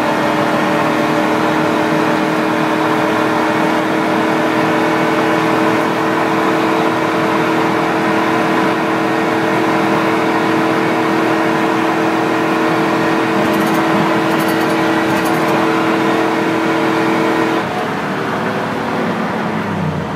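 1998 Dodge Ram's 5.2-litre (318) V8 held flat out near 5,000 rpm at about 120 mph, a steady engine drone over wind and road noise heard from inside the cab. About two and a half seconds before the end the throttle is lifted: the sound drops and the engine's pitch falls as it slows.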